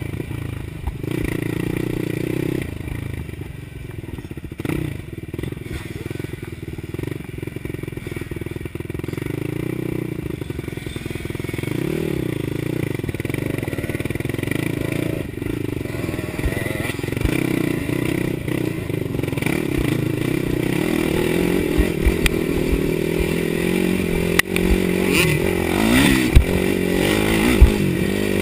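2011 Suzuki LT-R450 quad's single-cylinder four-stroke engine running under way, its revs rising and falling with the throttle. There are a few sharp knocks near the end.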